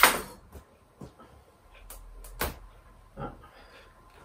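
Knife and red kuri squash knocking against a glass cutting board while the squash is cut open. A sharp clack comes right at the start and is the loudest sound, then scattered short knocks follow, one stronger about two and a half seconds in.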